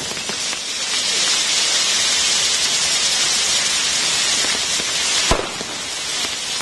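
Spinning ground-firework wheels burning, a steady loud hiss of spraying sparks, with one sharp bang about five seconds in.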